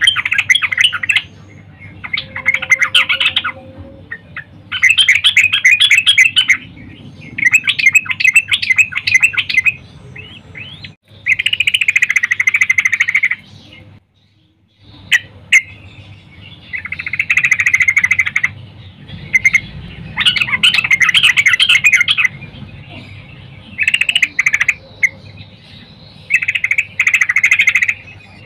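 Female yellow-vented bulbul (trucukan) calling: repeated phrases of rapid chattering notes, each one to two seconds long with short gaps between, and a brief pause about halfway through. These are the female's calls used to lure male trucukan into song.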